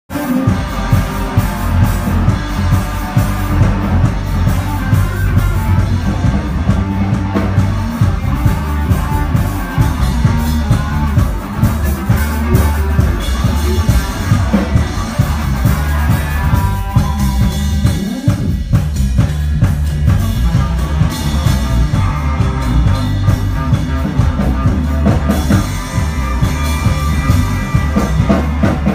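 Music with drums and guitar, playing continuously.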